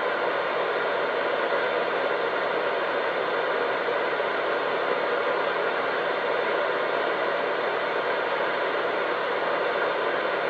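Steady static hiss from a two-way radio receiver with no one transmitting, unbroken and even throughout.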